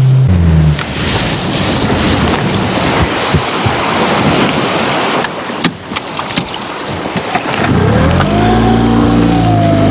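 Boat's outboard motor drops in pitch and cuts back right at the start, leaving a steady rushing noise with a few clicks about five to six seconds in. About eight seconds in the motor revs up, its pitch rising, then holds steady.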